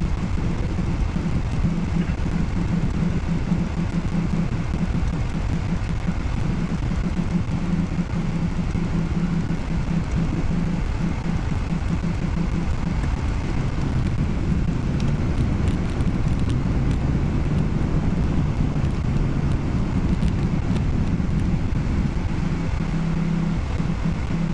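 Steady low hum of a car heard from inside its cabin in stop-and-go traffic: engine and road noise with a constant low drone.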